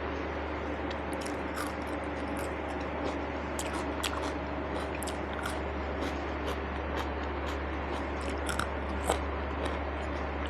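A person chewing and eating, with many short wet mouth clicks and smacks scattered irregularly throughout, over a steady low hum.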